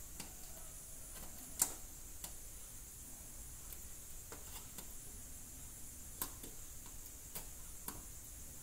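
Faint, irregular clicks and light taps of a backlight tester's metal probe tips touching the contacts of a TV LED backlight strip, over a steady hiss. The sharpest click comes about one and a half seconds in.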